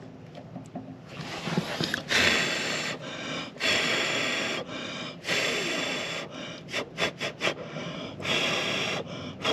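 Repeated loud breaths close to the microphone, each lasting about half a second to a second, with four quick short puffs about seven seconds in.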